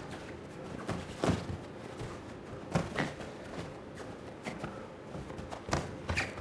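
Boxers' gloved punches and footwork on the ring canvas: a handful of sharp thuds, a few seconds apart, over steady arena hiss.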